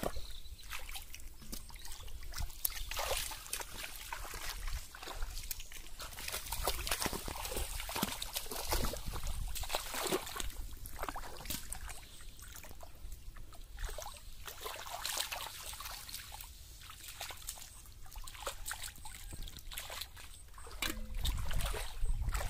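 Shallow muddy water splashing and sloshing in an irregular run of small splashes and drips, as hands grope through it for fish and lift them into a metal pot.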